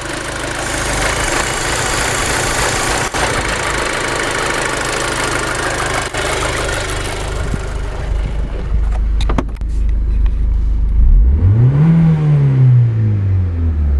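Audi A4 B7's 2.0-litre turbocharged four-cylinder petrol engine (BWE) held at high revs and running stably, then dropping back to a lower speed about eight seconds in. Near the end it is revved once more to about 4,000 rpm, the pitch rising and falling back down.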